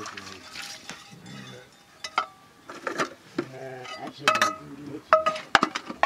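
Aluminium pots and bowls clanking and clinking against each other and the ground as they are washed by hand. There are several sharp metallic knocks with brief ringing, mostly in the second half.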